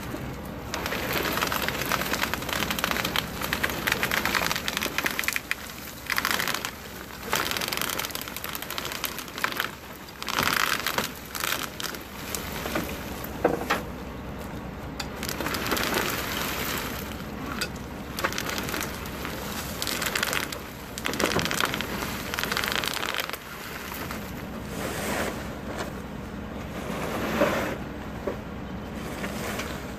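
Wood-chip mulch sliding and crackling as a hand-cranked truck bed unloader drags the load out over a pickup's tailgate, with clumps spilling to the ground in irregular surges.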